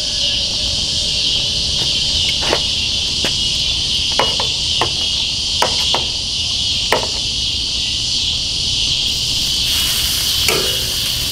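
A loud, steady chorus of insects buzzing. Over it come a series of short, sharp metal clicks as grill tongs set chicken breasts down on the grill grates, about eight of them between two and seven seconds in.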